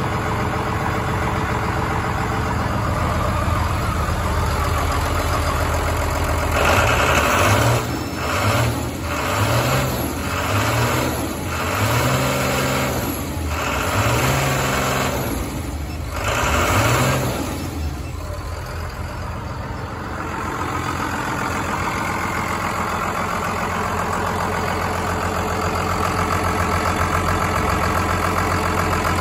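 2001 Cummins ISB 5.9 L inline-six turbo-diesel engine idling steadily. After several seconds it is revved in about seven quick throttle blips, each rising and falling in pitch over about a second, then it settles back to a steady idle for the last ten seconds or so.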